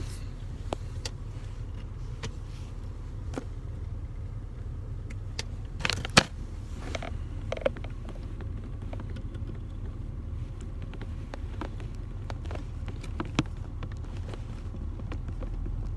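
Scattered clicks and knocks of hands working an aluminum shift knob onto a car's gear lever to tighten it, the loudest about six seconds in, over a steady low hum.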